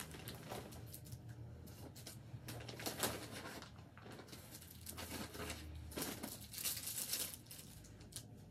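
Faint rustling and crinkling as small costume pieces and their packaging are handled and rummaged through. There are louder crackles about three seconds in and again around six to seven seconds.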